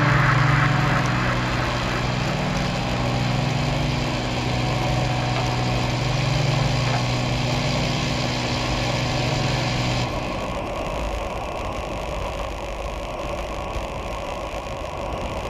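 Wind and road rush from a road bike riding fast on open tarmac, with a steady low hum under it that stops abruptly about ten seconds in, leaving only the wind and tyre noise.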